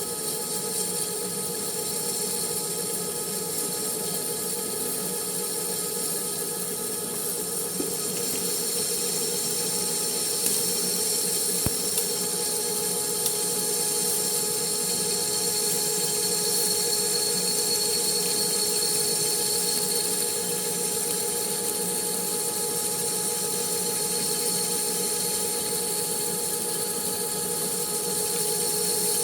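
Manual metal lathe running steadily with a constant whine over a hiss, a few small clicks about halfway through.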